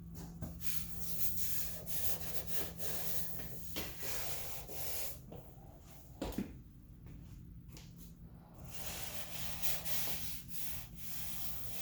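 Irregular rubbing and scuffing strokes, with a single knock about six seconds in.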